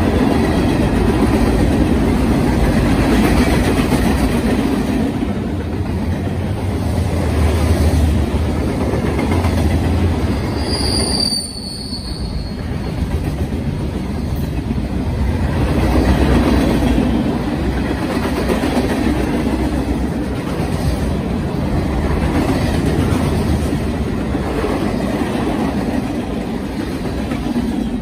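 Norfolk Southern freight train's cars rolling past: steady heavy rumble and clatter of steel wheels on rail. About eleven seconds in there is a brief high squeal that falls in pitch.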